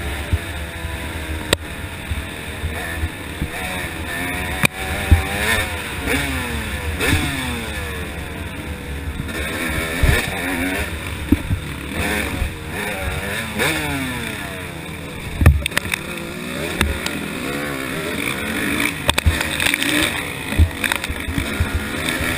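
Yamaha YZ250 two-stroke dirt bike engine racing hard, its pitch rising and falling over and over as the throttle is worked and the bike shifts through the gears. Occasional sharp knocks come through.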